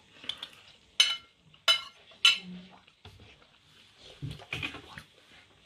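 A metal fork clinking against a dinner plate three times, sharp and ringing, followed by a few soft knocks of tableware.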